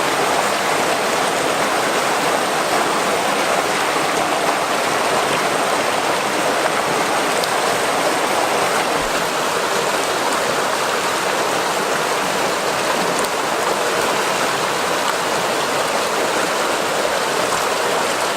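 River water flowing and splashing in a steady, unbroken rush.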